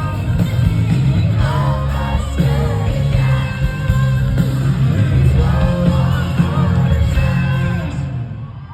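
Live band music with singing, a rock song with heavy bass and drums, heard loud from within a concert crowd. It drops away near the end as the song finishes.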